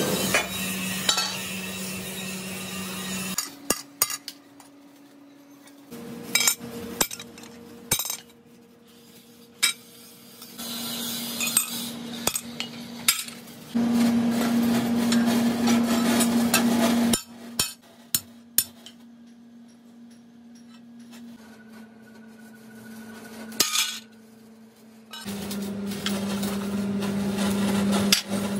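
Irregular hammer blows and sharp metallic clinks on cut steel plate, over a steady low hum that shifts pitch a few times.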